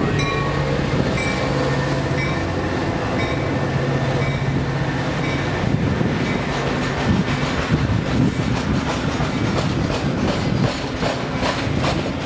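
Metra diesel commuter train passing close by: the locomotive's engine drones steadily, then the bilevel coaches roll past with a regular clickety-clack of wheels over rail joints. Repeated high dings sound in the first few seconds.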